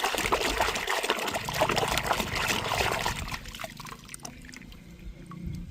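Water trickling and splashing as toy cars are washed, with many small spattering clicks; it eases off about three seconds in.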